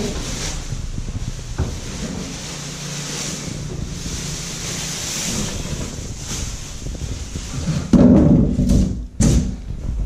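A large plastic cover rustling as it is pulled off a microwave oven. Near the end there are louder low thuds and knocks.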